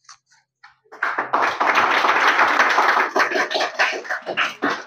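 A small group of people clapping, starting about a second in and dying away near the end.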